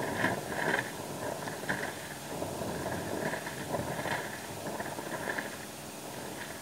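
Air-lift discharge from a well being cleaned with compressed air: air and water spray sputtering out of a PVC elbow on a one-inch pipe, a steady hiss broken by irregular gushes.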